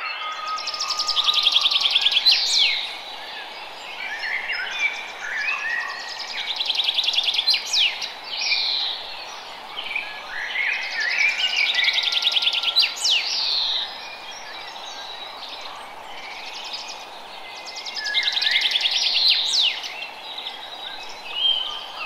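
Songbirds singing phrases of fast trills and quick whistled sweeps, a new phrase every few seconds, over a steady hiss of running water.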